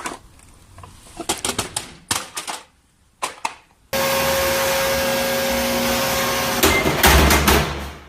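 A few light clicks and knocks, then a robot vacuum running with a steady hum and whine that starts abruptly about four seconds in. Near the end come loud thuds and clatter as it tumbles.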